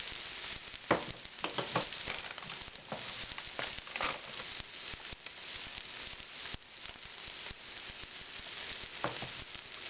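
Scrambled egg frying in a pan, sizzling steadily, with a utensil scraping and knocking against the pan several times, mostly in the first half and once more near the end.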